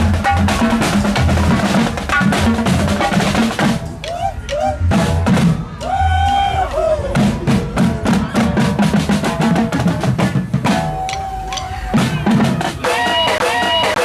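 Marching street-percussion group playing snare, multi-tom tenor and bass drums: a fast, busy beat with rolls and heavy bass-drum thumps. Near the end the drumming stops and a repeating tune takes over.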